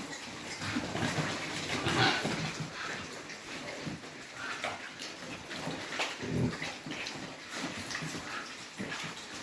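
Pigs feeding: irregular short grunts and snuffling noises, with a clearer low grunt about six seconds in.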